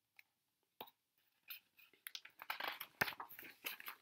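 Page of a hardcover picture book being turned: faint, crisp paper rustling and crackling with a few clicks, growing denser over the last two seconds, with a sharp snap about three seconds in.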